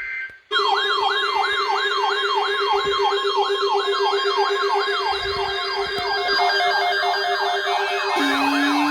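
Electronic siren in a fast yelp, a rising sweep repeating about three to four times a second, over a steady electronic tone. It starts abruptly about half a second in, and the steady tone drops lower near the end.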